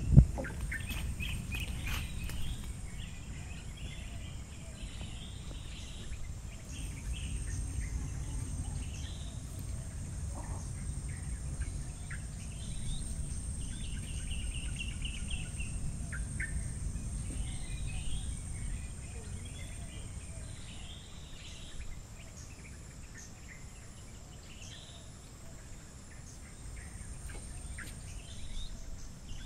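Birds calling in short, repeated chirping phrases, over a steady high-pitched whine and a low rumble.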